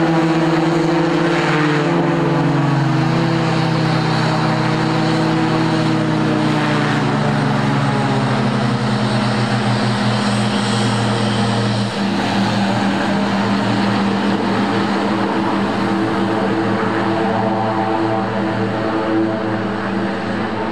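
Cal Fire OV-10A Bronco's twin Garrett T76 turboprops running as the plane taxis out, a steady multi-tone propeller drone. A few seconds in the pitch slides down, then holds steady.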